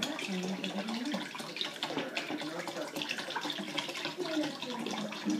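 Chicken broth pouring from a carton into a saucepan, a continuous splashing, glugging stream of liquid.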